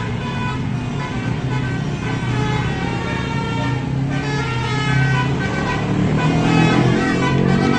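Bus telolet horn: a bus's set of multi-tone air horns playing a quick run of changing notes again and again, over the bus's engine running underneath, growing louder toward the end.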